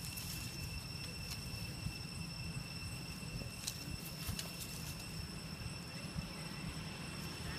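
Steady outdoor background: a low rumble, a thin high whine and a few faint clicks.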